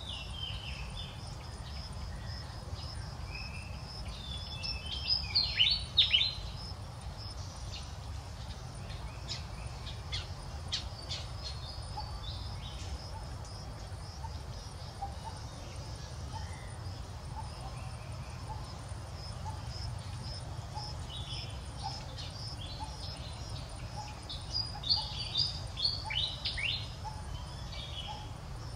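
Outdoor ambience: a steady high insect drone over a low rumble. Two bursts of sharp, high, falling chirps or squeaks come about five seconds in and again near the end, the loudest sounds present.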